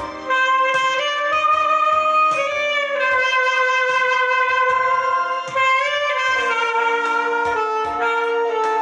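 Saxophone playing a slow melody in long held notes with slides between them, over a backing track with a steady low beat.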